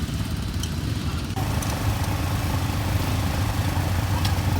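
ATV engine idling steadily with a low, even hum.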